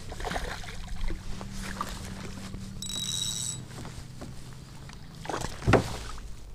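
A hooked bass splashing at the water's surface beside a kayak as it is reeled in, with one loud splash about two-thirds of the way through.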